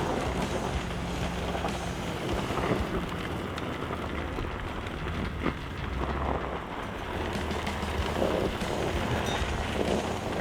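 Snow-plow truck's engine running steadily, with a low, even hum and some noise over it.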